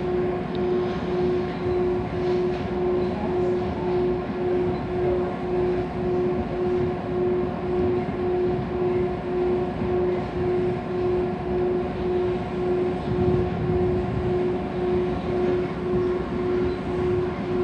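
An electric commuter train running at steady speed, heard from inside the carriage: a continuous rumble of wheels on the rails, with a constant hum that pulses evenly, about two to three beats a second.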